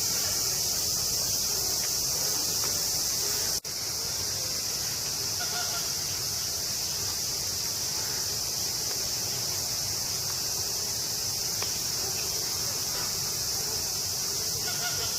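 Steady, loud chorus of cicadas, an even high-pitched buzz with no break except a momentary dropout about three and a half seconds in.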